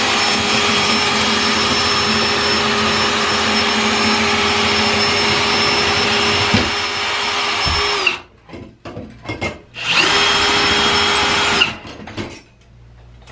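Electric power drill running in one long steady run that winds down about eight seconds in, then a second shorter run near the end, with a few knocks between.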